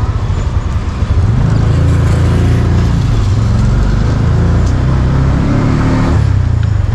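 Auto-rickshaw's small engine running under way, heard from inside the open cabin: a loud, steady low rumble whose pitch rises and falls as the driver speeds up and eases off.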